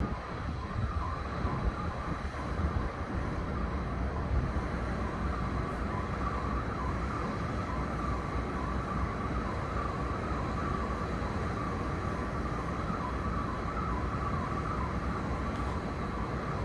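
A constant alarm-like electronic tone holding one pitch with a slight waver, heard over the low rumble of city traffic.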